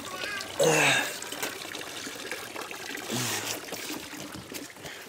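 Water running from a stone fountain's spout into its basin, splashing as a man scoops it onto his face with his hands. His voice breaks in with two short wordless sounds, the louder about half a second in and another about three seconds in.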